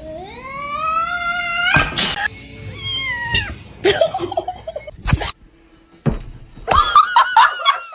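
A cat meowing: one long meow rising in pitch, then a shorter falling meow, and near the end a fast, wavering, warbling cry.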